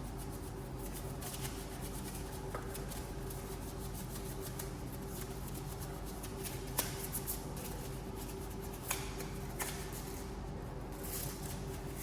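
Brush scrubbing a car wheel: scattered scrapes and clicks over a steady low hum.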